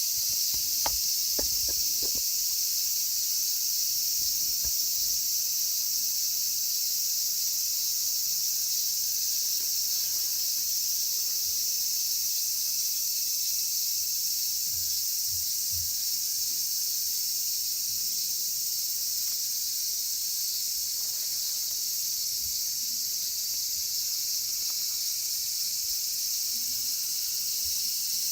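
Cicadas singing loudly in chorus: a steady, high-pitched, sizzling drone that does not let up.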